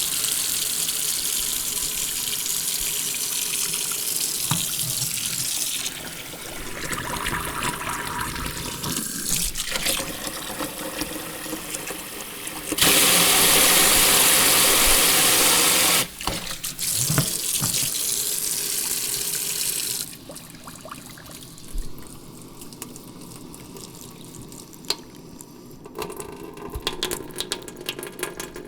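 Tap water running into a sink, the stream changing strength in stages. It runs heaviest and loudest for a few seconds around the middle, then drops to a quieter, thinner flow with small irregular splashes and ticks in the last third.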